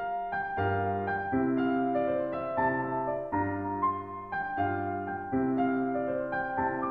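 Background piano music, with a new note or chord about every two-thirds of a second.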